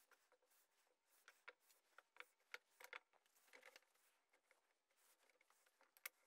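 Near silence with scattered faint, light knocks and clicks of wooden blocks being set down and nudged into line by hand on sash clamps.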